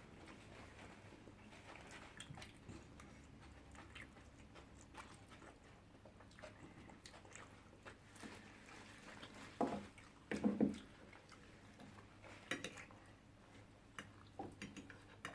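Quiet eating sounds: chewing, with scattered light clicks and a few short, louder mouth or cutlery sounds about ten seconds in and again towards the end.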